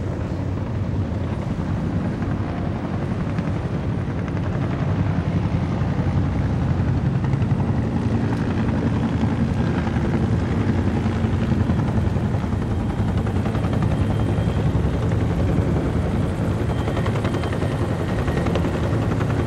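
Steady low engine drone that grows louder about five seconds in.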